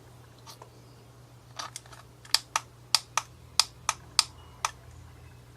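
About a dozen sharp, irregular plastic clicks from a cheap LED tester being handled as LEDs are fitted into it and tested.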